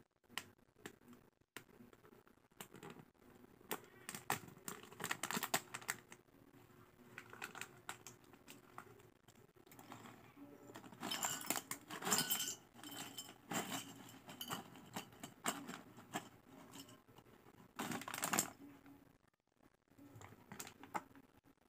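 Crinkling of a foil snack pouch being handled and tipped, with dry, crisp vegetable chips pouring out and clattering onto a ceramic plate, in several bouts of clicks and crackles.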